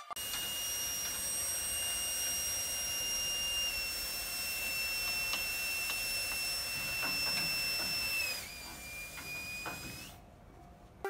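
Steady high-pitched electrical whine from the underfloor equipment of a stationary Tobu 70090 series electric train. It drops slightly in pitch about eight seconds in and cuts off about ten seconds in, with a few faint clicks over it.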